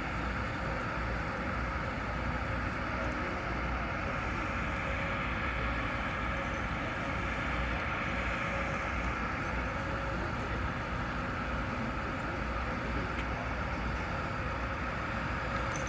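Steady rushing outdoor noise with a constant low rumble, unchanging throughout; no ship's horn sounds.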